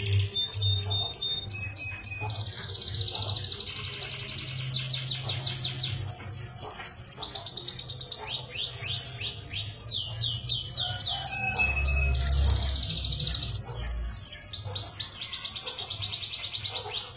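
Domestic canary in full song: fast trills of repeated down-slurred notes alternating with held, buzzy notes, with a low hum underneath.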